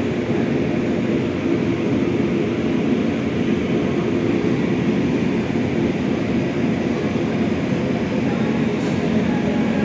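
Airbus A380's Rolls-Royce Trent 900 jet engines running at taxi power as the airliner rolls slowly toward the gate: a steady low rumble.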